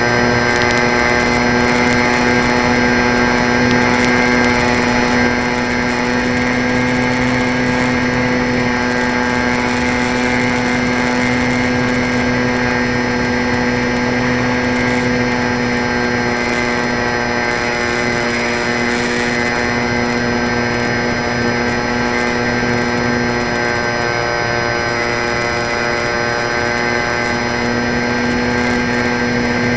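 Electric motor and propeller of a radio-controlled park-flyer plane, heard from on board: a steady whine of several stacked pitches over a continuous rush of noise. It holds nearly constant, easing slightly about five seconds in.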